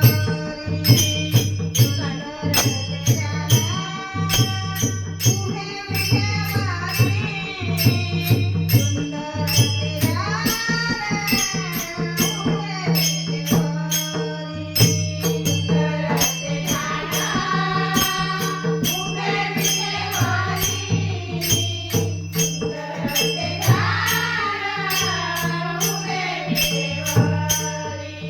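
Marathi bhajan: a woman sings a gliding devotional melody over a mridang drum and fast, even jingling hand percussion, with steady held notes underneath.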